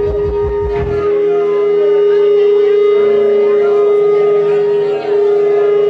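Guitar amplifier feedback at a punk show: one loud, steady, high tone held without fading, over the band's last low notes, which stop about a second in.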